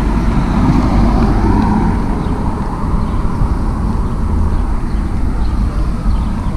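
A car driving past at low speed on a town street, its engine and tyre noise swelling about half a second in and fading after about two seconds, over a steady low rumble.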